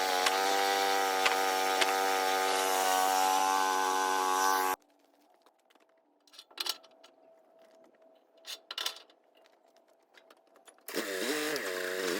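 Small sawmill's engine running steadily while the blade cuts through wood, with a few sharp ticks. About five seconds in it stops abruptly, leaving a low level with a few knocks, and near the end the engine sound comes back with its pitch dipping twice.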